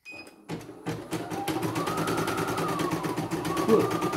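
CNY E900 portable embroidery machine starting up after a few clicks and stitching at speed: a fast, even needle rattle with a motor whine that rises and dips.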